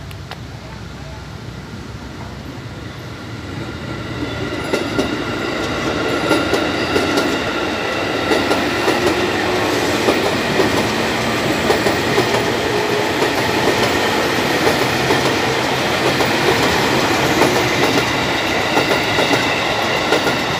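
KRL Commuter Line electric multiple unit passing close by, growing louder as it arrives and then running steadily past, its wheels clacking over the rail joints under a steady high tone.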